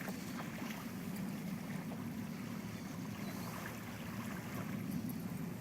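Motorboat engine running at a steady low drone.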